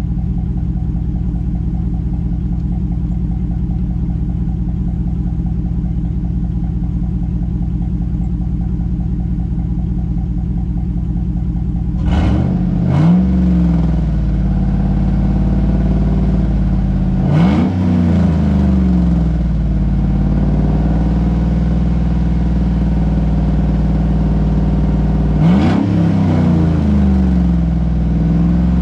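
Chevy Silverado pickup's engine idling steadily, then revved three times, each rev climbing and falling back to idle: running off a Seafoam intake treatment just after an oil change.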